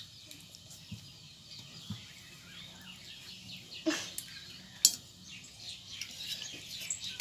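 Small birds chirping, many short high notes, busiest in the second half. Two sharp clinks about four and five seconds in, from forks against the metal plates.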